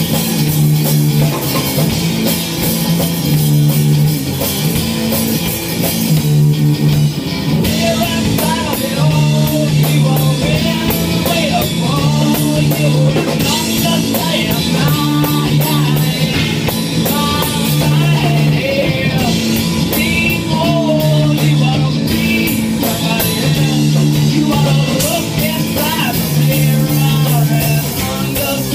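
Rock band playing loud and steady: guitar and drum kit over held low notes that change every second or two.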